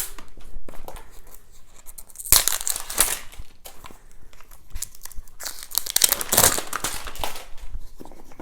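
Plastic wrapping crinkling and tearing as it is cut and pulled off a small wooden box, in two main bursts, the second longer.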